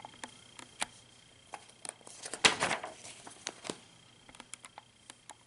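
Scattered light clicks and taps of handling, with a short rustling swish about two and a half seconds in.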